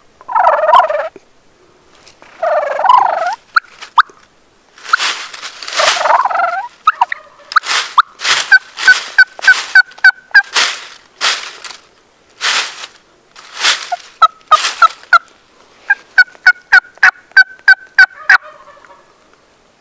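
Gould's wild turkeys calling: warbling gobbles about half a second in and again near three seconds, more gobbles through the middle, and two runs of short evenly spaced yelps at three to four a second.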